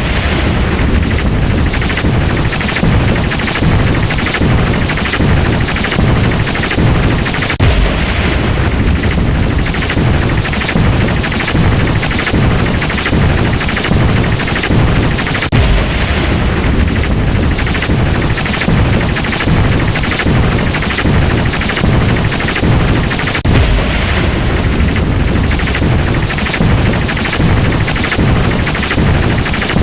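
Rapid string of lightning-crack sound effects, two or three cracks a second, over a continuous low thunder rumble, the pattern repeating about every eight seconds.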